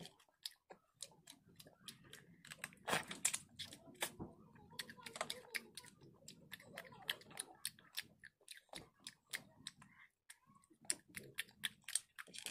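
Cooked snail shells clicking and clinking against each other and the steel bowl as they are picked out one by one, with soft mouth sounds of eating in between. The clicks are sharp and irregular, several a second, like typing.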